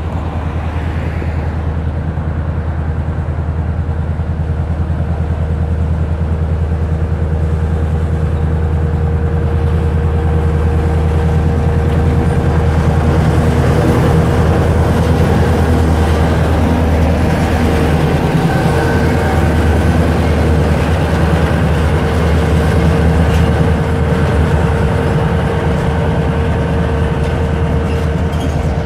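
Serbia Cargo class 661 diesel-electric locomotive, an EMD-built V16 two-stroke, running as it approaches and passes close by at the head of a freight train. Its steady engine drone grows louder towards the middle, then the freight wagons roll past.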